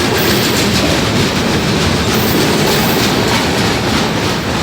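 Freight train rolling past: steady rail and wheel noise from the passing cars.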